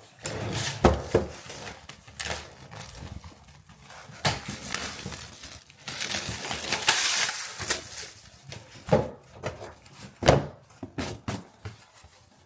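Irregular knocks and bumps of objects being handled, with a longer rustle about halfway through.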